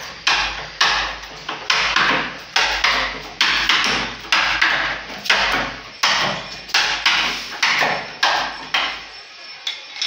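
Carpenter's hammer driving a chisel into the edge of a wooden door, cutting the recess for a mortise lock: about a dozen steady, sharp blows a little over one a second, which stop shortly before the end.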